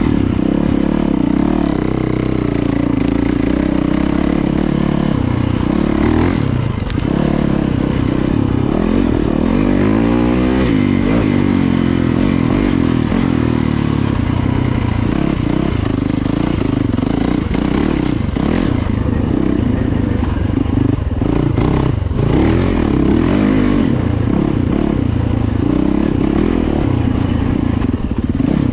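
Yamaha YZ450FX single-cylinder four-stroke dirt bike engine running under way at low to moderate revs, recorded on the bike. The throttle is worked on and off, so the pitch rises and falls, most clearly about halfway through.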